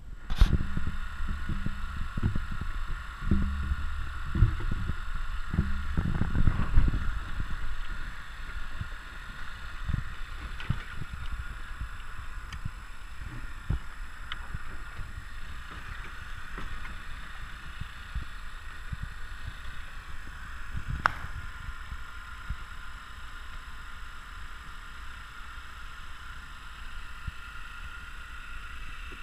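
A boat's outboard motor running steadily with low rumble and water noise, with heavier knocks and thumps in the first several seconds and one sharp click about two-thirds of the way through.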